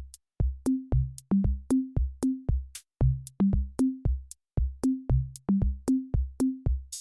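Electronic backing music: a drum-machine beat of short punchy hits, each with a deep bass note, about three a second.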